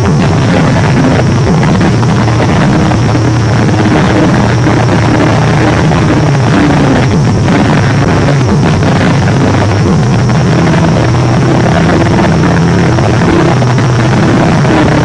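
A loud, harsh, steady rumbling noise with no breaks.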